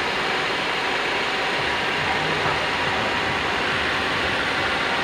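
Car engine idling steadily, heard close up in the open engine bay, with the drive belt and alternator turning.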